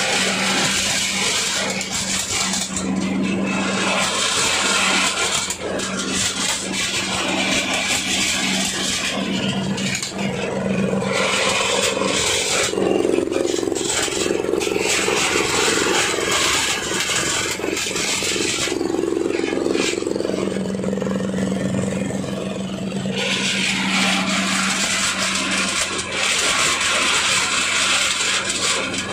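Areca nut husking machine running, driven by a small diesel engine: a steady engine hum under a loud scraping, rushing rattle of dry areca nuts being stripped of their husks. The scraping swells and eases several times as loads of nuts pass through.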